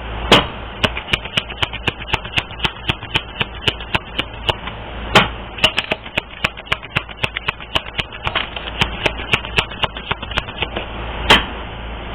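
Tarot cards being shuffled by hand: a quick run of light card taps and clicks, several a second, with a few louder snaps, over a low steady hum.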